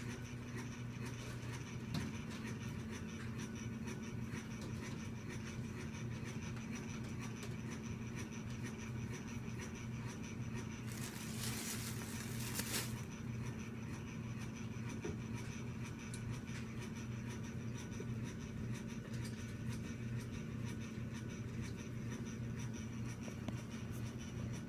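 Steady low electrical hum with a faint high whine and light scratching, broken about halfway through by a short rustle lasting about two seconds.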